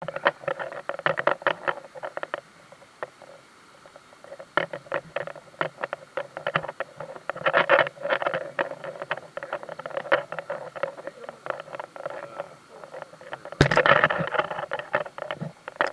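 Mountain stream water splashing and gurgling over rocks, heard as irregular runs of short splashes that come and go, with a louder surge of splashing about 14 seconds in.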